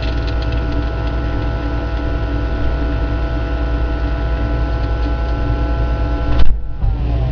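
Microwave oven running with a steady hum. It cuts off with a sharp click about six and a half seconds in, and its fan winds down in pitch.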